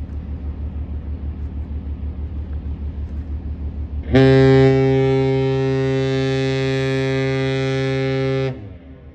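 Great Lakes freighter's horn sounding one long salute blast of about four and a half seconds, starting about four seconds in, steady in pitch and sagging briefly as it cuts off. Under it runs the ship's low engine throb, pulsing about six times a second.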